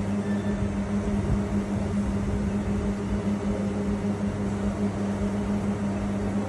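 Steady machine hum with a constant low drone and an even whir over it, unchanging throughout.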